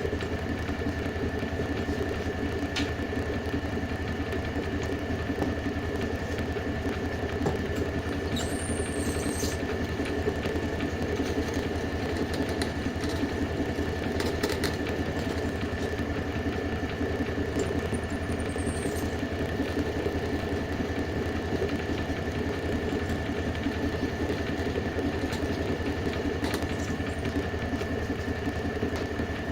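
A machine running steadily, with a constant hum and a steady high whine, plus two brief high squeaks, about nine and eighteen seconds in.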